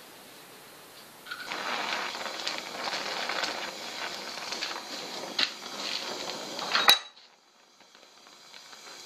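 Welding a bent steel-rod luggage-rack frame with a filler rod: a crackling hiss starts about a second and a half in and stops with a sharp click about seven seconds in. After a short quiet gap it starts again near the end.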